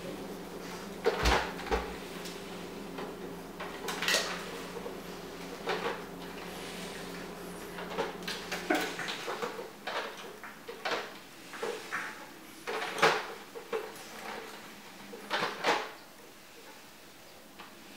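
Irregular knocks and light plastic clatter as a pug puppy paws and bites at a Mint robot floor cleaner on a tile floor, over a steady low hum that cuts off suddenly about halfway through.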